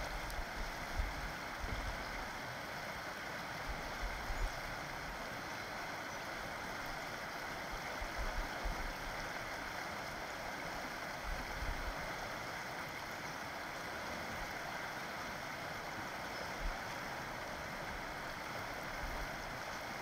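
Colorado River rushing steadily over shallow riffles and rocks, with brief low rumbles now and then.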